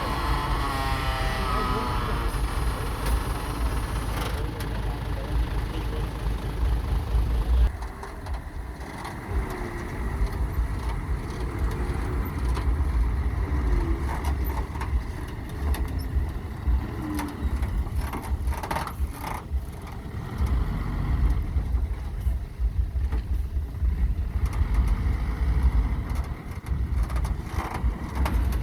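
Construction machinery running with a steady low engine rumble, broken by frequent knocks and clatter in the second half.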